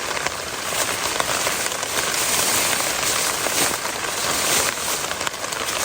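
Steady rain falling, a continuous hiss with many small drop ticks.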